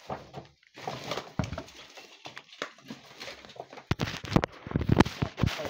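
Clear plastic bags crinkling and rustling as small plastic toy parts are handled and unbagged, with scattered clicks and a few dull knocks. It gets busier and louder about four seconds in.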